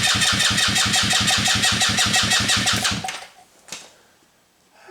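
Go-kart's 150cc engine cranked over by its starter without firing, pulsing evenly about seven times a second for about three seconds, then stopping, with a single click shortly after. This is a compression test, and the gauge stops at about 90 psi, which is borderline-low compression for this engine.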